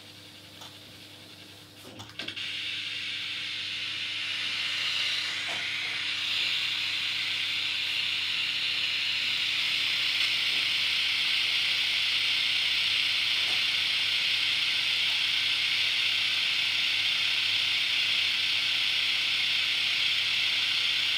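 Static hiss, switched on with a couple of clicks about two seconds in, then swelling over a few seconds into a steady hiss that holds, over a faint hum. It is a noise background set running for spirit voices to be heard through, as in spirit-box or EVP sessions.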